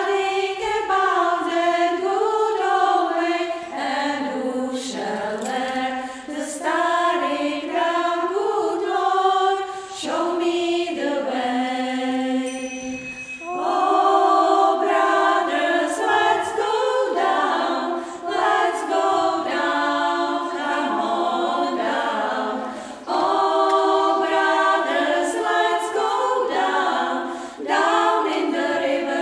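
Small women's choir singing a cappella in several-part harmony, in phrases broken by brief pauses.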